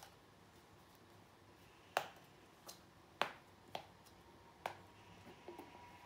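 Five faint, sharp clicks at uneven intervals, with a faint steady hum coming in near the end.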